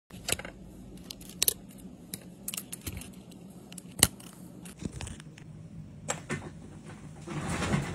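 Irregular sharp clicks and taps of long acrylic fingernails and small parts against an opened iPhone's glass and frame, over a faint steady hum, with a louder rustle near the end.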